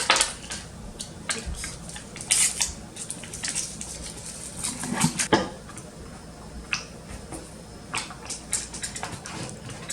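Kitchenware being handled: irregular clinks and clatters of dishes and utensils knocking together.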